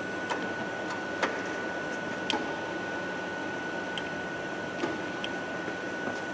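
Heavy steel fabrication shop ambience: a steady hum with a thin high whine, broken by scattered sharp metallic clicks and knocks, the loudest about a second in.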